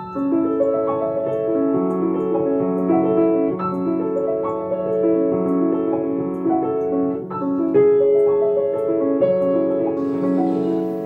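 Background piano music: a calm melody of evenly paced notes over a steadily repeated low note.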